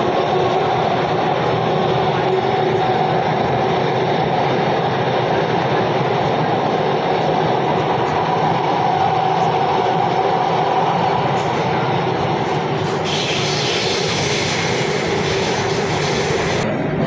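Bangalore metro train running, heard from inside the carriage: a steady rumble and hum. A brighter hiss comes in about four seconds before the end and cuts off near the end.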